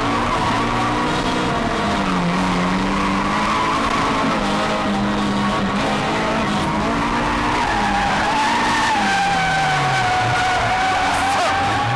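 Toyota AE86 drifting: the engine revs rise and fall while the tyres squeal continuously through the slide, heard from inside the cabin. The squeal drops in pitch about two-thirds through, and the revs fall near the end.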